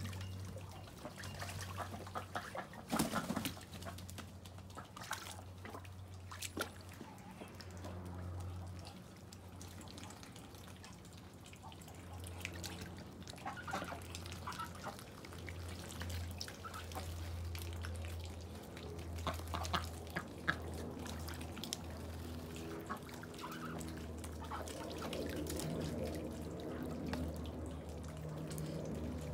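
Rainwater dripping and tapping in scattered irregular drops over a steady low rumble.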